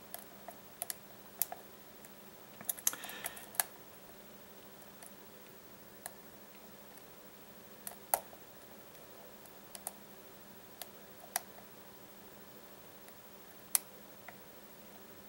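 Sparse, irregular metallic clicks of a lock pick working the pins of a Baldwin pin-tumbler lock cylinder under a tension wrench. A short cluster of clicks with a little scraping comes about three seconds in.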